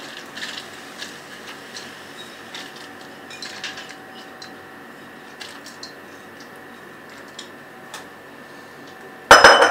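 Soaked split urad (mash) dal sliding out of a glass bowl into a non-stick pot: soft wet rustling with a few small ticks as fingers scrape out the last grains. Near the end, a short loud clatter.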